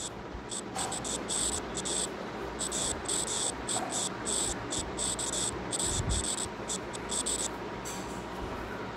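Crickets chirping in quick, uneven pulses of a high trill, which stops about a second before the end.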